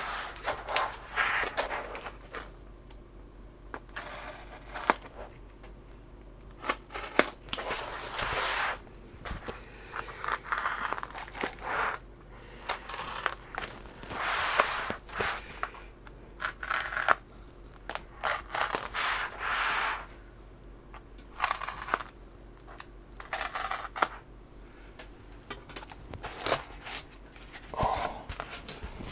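Blue packing tape being slit with a craft knife and pulled off a foam-packed box: irregular tearing, scraping and crinkling in bursts, with the foam lid lifted off near the end.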